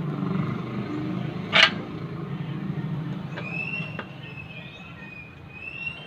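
Low rumble of a vehicle engine that fades out about three seconds in, with one sharp click about a second and a half in. A thin, high, wavering whistling tone runs through the second half.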